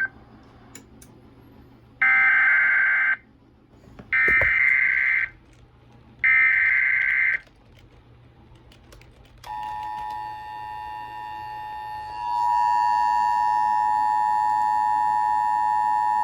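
Emergency Alert System SAME header: three buzzy digital data bursts of about a second each. They are followed by the EAS two-tone attention signal, a steady dual tone that gets louder about twelve seconds in. Together they mark the start of an EAS alert activation, here the relay of a special marine warning.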